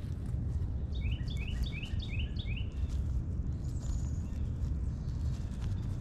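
A songbird singing a quick series of about eight repeated notes, around four a second, for about two seconds, over a steady low rumble.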